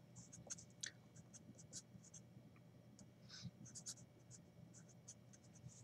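Felt-tip marker writing on paper: faint, short scratchy strokes in an irregular run as an equation is written out.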